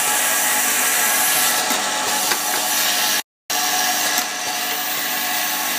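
Automatic e-liquid filling and capping machine running steadily: a constant mechanical hum and clatter, with a short hiss repeating about every two and a half seconds. The sound cuts out completely for a moment a little past halfway.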